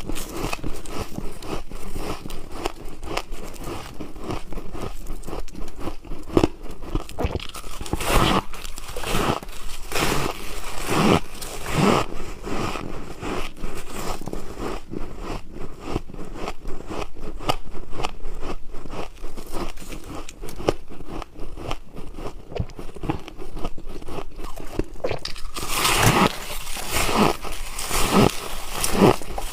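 Close-up bites and chewing of hard freezer ice: a dense run of sharp crunches and cracks. The crunching grows louder in the last few seconds.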